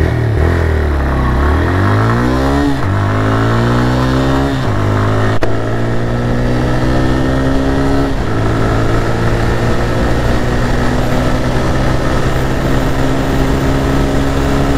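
TVS Raider 125's single-cylinder engine at full throttle, revs climbing hard through the gears with three quick upshifts that each drop the pitch before it rises again. After the last shift the engine pulls on in fourth gear, its pitch rising slowly.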